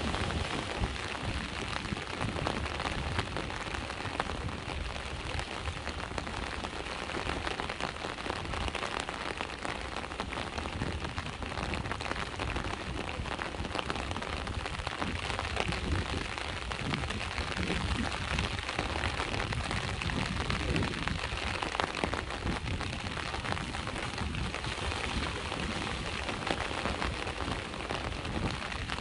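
Steady rain pattering in a dense stream of drops, over the low, even wash of sea waves.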